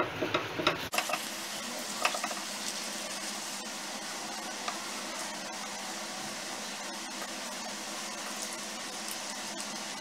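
Custard batter and sugar syrup bubbling and sizzling in a non-stick frying pan, a steady hiss. A wooden spatula scrapes and knocks against the pan a few times in the first two seconds.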